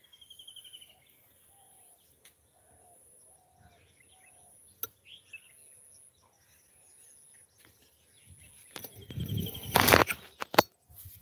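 Birds calling: a fast high trill, then a row of short, low whistled notes. Near the end, loud rustling noise comes in for a couple of seconds.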